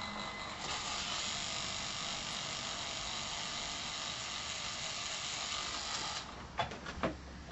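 Handheld percussion massager buzzing steadily as it works the shoulder muscles, cutting off about six seconds in. A few light clicks and knocks follow near the end.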